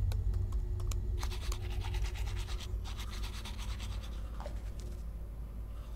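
A few computer keyboard clicks at the start, then a manual toothbrush scrubbing teeth in quick back-and-forth strokes from about a second in, over a low steady hum.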